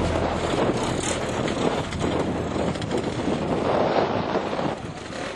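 Motor scooter engines running, with wind buffeting the microphone.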